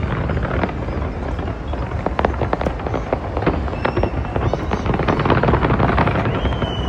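Fireworks going off in rapid succession: a dense, irregular run of bangs and crackles over a constant low rumble, heaviest in the middle, with a long steady whistle near the end.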